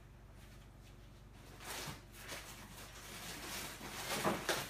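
Quiet at first, then rustling and handling noises with scattered soft clicks, growing louder over the last few seconds.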